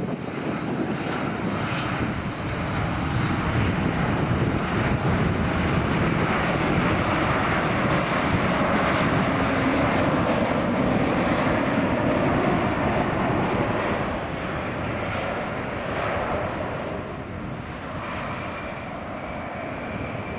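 Jet noise from a Boeing 737 MAX 8-200's CFM LEAP-1B turbofans as the airliner comes in on final approach and passes by at touchdown: a steady roar that builds, is loudest about halfway, then eases off. A thin, steady high whine comes in near the end.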